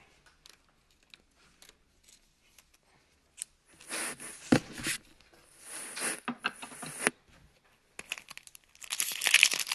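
Wrapper of a baseball card pack being torn open and crinkled by hand. A few faint handling ticks at first, then stretches of tearing and crackling about three and a half seconds in, with denser crinkling near the end.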